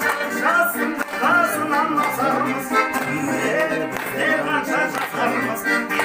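Dombra strummed in a steady rhythm while a man sings along.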